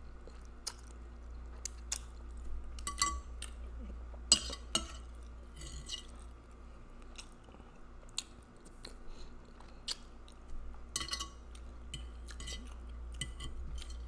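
Close-up mouth sounds of eating spaghetti in meat sauce: noodles slurped off the fork and wet chewing, with many short, sharp smacking clicks and a few longer slurps.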